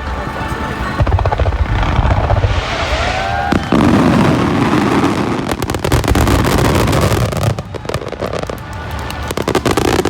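Aerial fireworks going off in a rapid barrage: overlapping deep booms with crackling, and a brief whistle about three seconds in.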